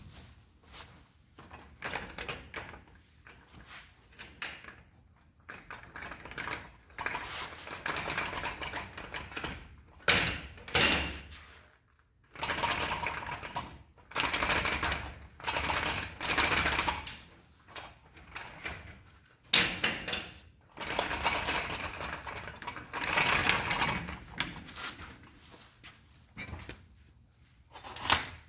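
A small electric motor with clattering gears running in repeated bursts of one to three seconds, stopping and starting, with sharp clicks between runs.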